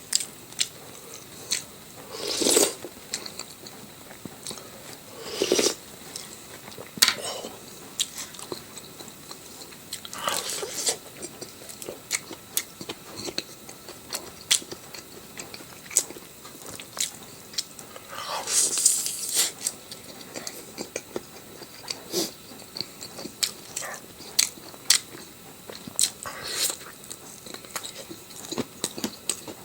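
Close-up eating sounds: a person chewing and biting food, with frequent sharp mouth clicks and a handful of louder, longer bites of about a second each.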